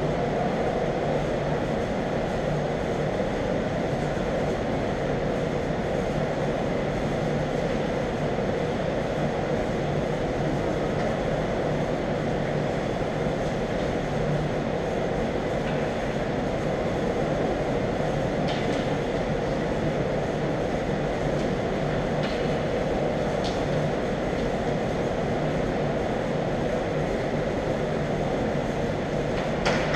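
Steady rumbling room noise of an indoor ice rink, with a few faint sharp clicks about two-thirds of the way through.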